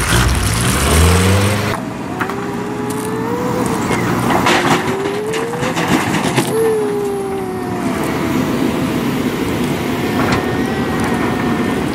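A motor vehicle engine revs up and drops away in the first two seconds. It is followed by a steady hiss with several slow rising and falling whines, like a machine straining.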